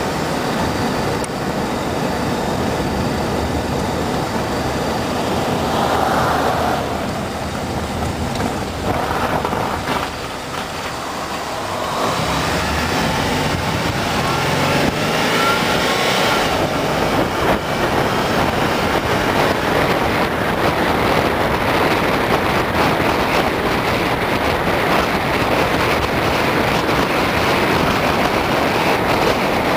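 Car driving, heard from inside: a steady mix of engine and tyre road noise. Partway through the engine's pitch rises as the car picks up speed, and the noise stays a little louder after that.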